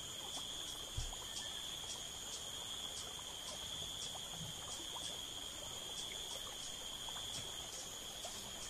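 Faint chorus of calling insects: a steady high buzz with a higher trill that pulses about three times a second. A soft low thump comes about a second in.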